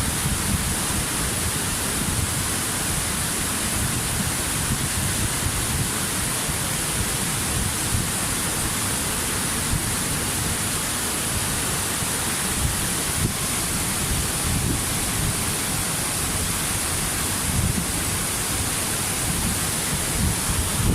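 Waterfall: a steady rush of falling water with a low rumble underneath.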